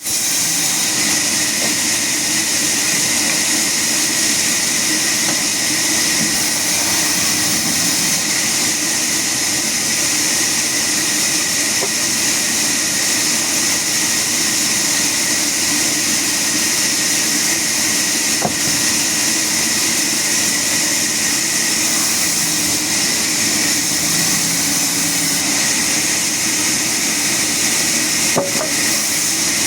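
Sawmill saw running steadily: a loud, constant hissing hum with no pauses, and a couple of faint clicks.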